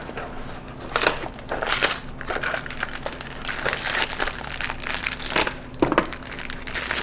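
Plastic packaging crinkling and rustling in irregular bursts as parts are unpacked.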